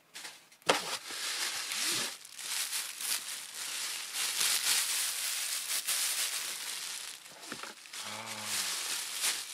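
Packaging crinkling and rustling as it is handled, starting with a sharp crackle about a second in and going on unevenly. A short low voice sound near the end.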